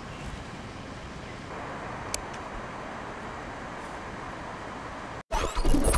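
Steady outdoor city background noise with the hum of road traffic. Just after five seconds it cuts out and a loud, short sound effect with sweeping tones starts abruptly.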